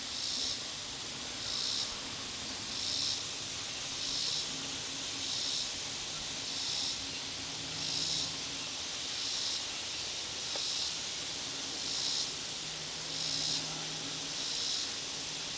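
Insects buzzing: a steady high hiss that swells in short, even pulses about every 1.3 seconds, over a faint low hum.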